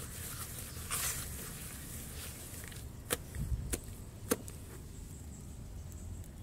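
Fingers raking and squishing wet brown sand in a plastic tub: a soft, gritty crumbling rustle, with three sharp clicks in the middle, over a low background rumble.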